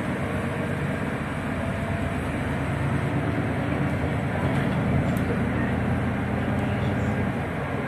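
Interior running noise of a Solaris Urbino 12 city bus under way: a steady low hum from the engine and driveline, mixed with road and tyre noise.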